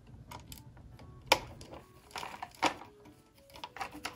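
Small hand screwdriver turning a metal screw into a plastic model's container-pod frame: scattered clicks and scrapes of the tip and screw, the sharpest click just over a second in.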